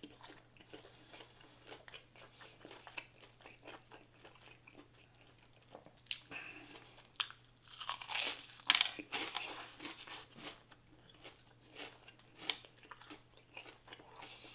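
Close-miked biting and chewing of crispy Popeyes fried chicken, with a run of sharp crunches, loudest from about six to nine seconds in.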